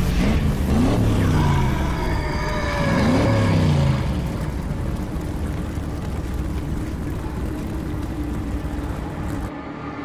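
Engine sound effect of a fantasy car with flaming wheels, revving in rising and falling sweeps for the first four seconds, then running on with a steady hum.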